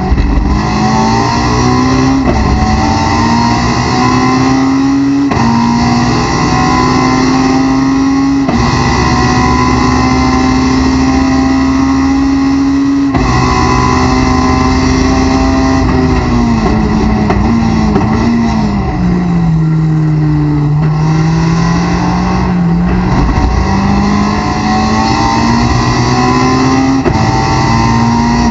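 Honda S2000 race car's 2.2-litre four-cylinder engine heard inside the cockpit at full throttle, the revs climbing and dropping back at each of several upshifts. Later the engine note falls as the car brakes and downshifts, then climbs again through the gears near the end.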